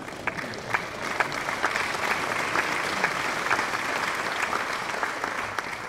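Audience applauding: dense, steady clapping from many hands that builds slightly in the first second or so.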